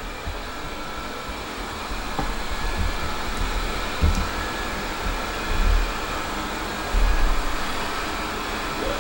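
Steady whooshing hum of an air-moving appliance, with several dull low thumps about three, four, five and a half and seven seconds in.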